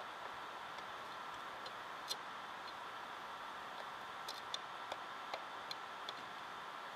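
Light, irregular clicks and taps of small parts being handled while the Mac Mini's internal ventilation grille is fitted back into place, over a steady hiss.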